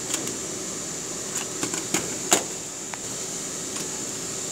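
Scattered sharp plastic clicks and light knocks as the plastic housing of a Panasonic VF200 inverter is handled and its locking clips are fitted, the loudest click about halfway through, over a steady high hiss.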